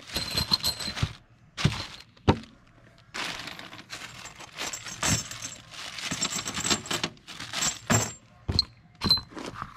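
Crinkling plastic bag and metal D-ring tie-down anchors clinking and knocking together as they are handled and tipped out of the bag, with scattered sharp clicks and a stretch of crackling in the middle.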